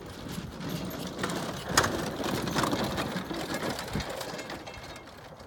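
Horse on the move, its hoofbeats mixed with a busy clatter that swells a couple of seconds in and fades near the end, with one sharp knock as it peaks.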